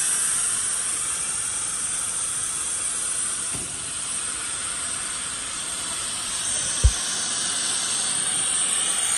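Steady loud hiss of compressed air from a pneumatic meat patty forming machine's air lines, with two short low knocks partway through.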